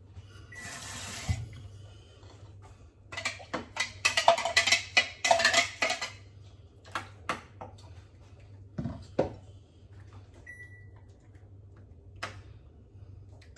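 A short pour of liquid, then a spoon scraping and knocking against a plastic mini-chopper bowl as ground prawn heads and water are scraped out into a bowl, in a quick run of clicks and scrapes a few seconds in. Later, a few light spoon taps as the mixture is stirred.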